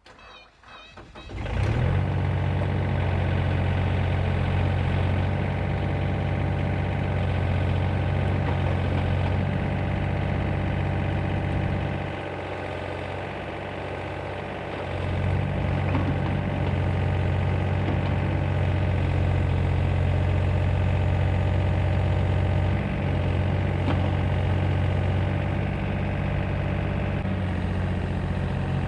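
Excavator engine cranking and catching in the first two seconds, then running steadily. It drops back for about three seconds around the middle and picks up again.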